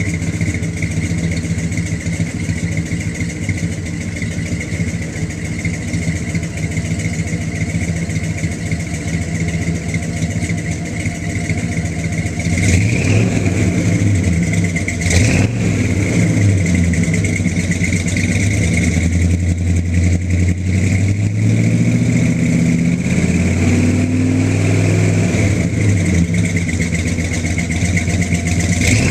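1987 Ford Econoline 4x4 van engine running through a new 3-inch single exhaust with one high-flow muffler: idling steadily, then from about halfway through revved up and down several times, with two quick blips and a longer held rev.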